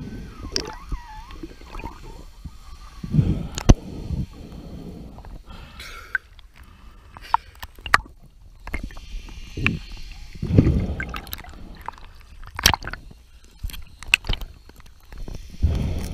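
Water gurgling and sloshing around a diver at and just under the sea surface, in uneven surges, with a few sharp knocks of dive gear.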